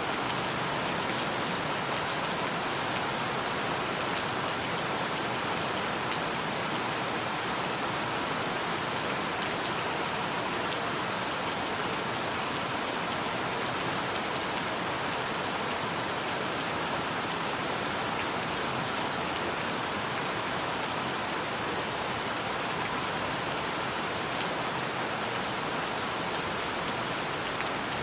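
Steady rainfall: an even, unchanging hiss with a few faint drop ticks.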